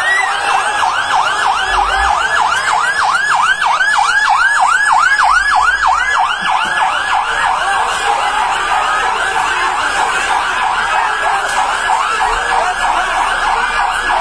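Fire engine siren in a fast yelp, its pitch rising and falling about three to four times a second; the sweeps grow less distinct in the second half.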